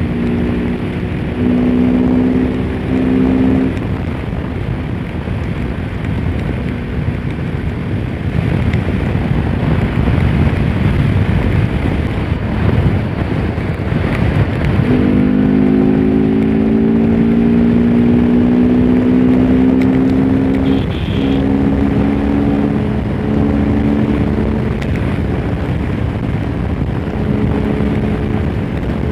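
Bajaj Pulsar RS200 single-cylinder engine running at road speed under heavy wind rush on the microphone. The engine tone rises slowly for several seconds in the middle as the bike gathers speed, dips briefly, then holds steady.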